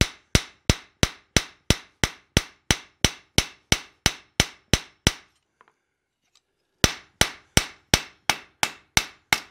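Hand hammer striking hot steel on an anvil in a steady rhythm, about three blows a second, each with a short metallic ring. The steel is being worked down against the anvil to smooth out peen marks. The blows stop for about a second and a half just past the middle, then start again at the same pace.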